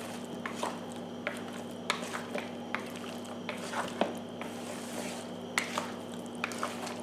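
Chicken wings being stirred through a wet flour coating in a plastic bowl: soft stirring noise with irregular small clicks of the utensil against the bowl. A steady faint hum runs underneath.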